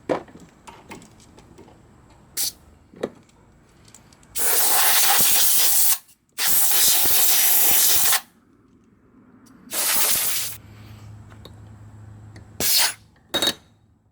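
Compressed air blasting from an air hose in several bursts: two long blasts back to back, a shorter one, then two quick puffs near the end. A few sharp clicks come first.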